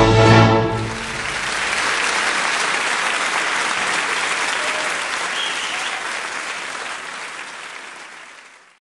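Music ends about a second in, giving way to audience applause that slowly fades and cuts off abruptly near the end.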